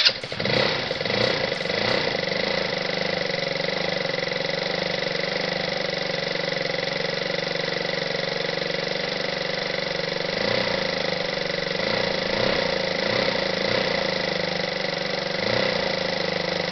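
GY6 150cc four-stroke single-cylinder scooter engine just started on the electric starter, running unevenly for about two seconds before settling into a steady idle. This is its first run on a newly fitted 11-pole stator and flywheel.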